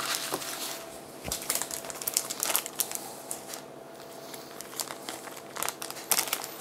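Intermittent crinkling and rustling of baking parchment and disposable plastic gloves as a pastry roll is handled in a baking tray. The crackles come in clusters, busiest at the start, around two seconds in and near the end, with a quieter stretch in the middle.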